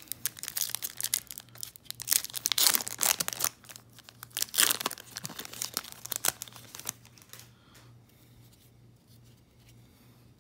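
A baseball card pack's wrapper being torn open and crinkled: a run of tearing and rustling for about seven seconds, loudest in the middle, then dying down.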